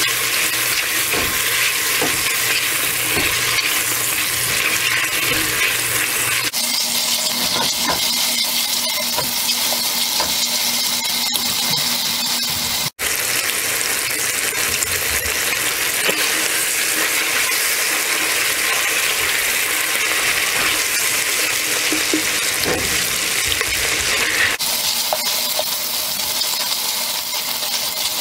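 Chopped bacon sizzling as it fries in a pot, with a silicone spatula stirring and scraping through it.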